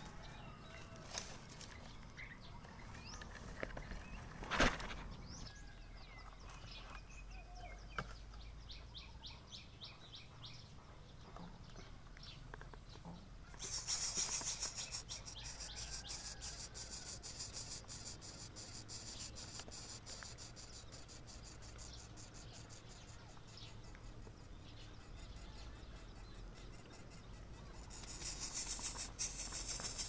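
Scattered short bird chirps, then a loud, fast, high-pitched rasping buzz that starts suddenly about halfway through, fades, and comes back strongly near the end. This is the begging of greater coucal nestlings being fed by the parent.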